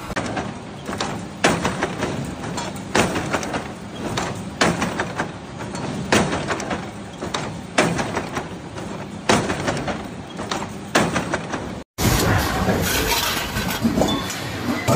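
Hexagonal wire-mesh weaving machine clanking in a steady rhythm, one sharp knock about every one and a half seconds. After a sudden cut near the end, a steadier, noisier machine sound takes over.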